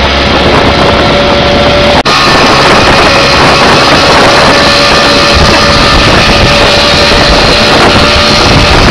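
Small motor of an open three-wheeled coco-taxi running at speed, a loud steady drone mixed with wind rushing over the microphone. The sound drops out for an instant about two seconds in.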